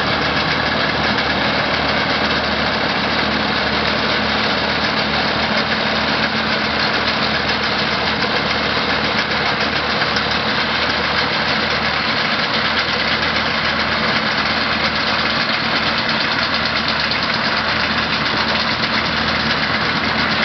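Case DC4 tractor's four-cylinder engine running steadily at low speed while it drives a Case corn binder cutting maize, with the binder's machinery clattering along with it.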